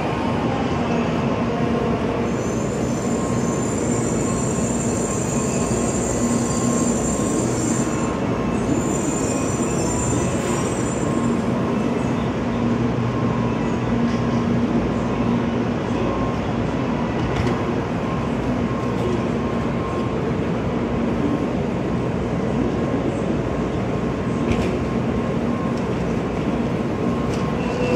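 Shinkansen bullet train rolling slowly along the platform with a steady electric hum, a thin high whine over the first ten seconds or so, then the steady din of the station platform beside the standing train.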